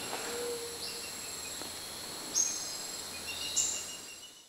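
Tropical forest insects shrilling in several steady high-pitched tones, with short high bird calls about a second, two and a half and three and a half seconds in. It fades out near the end.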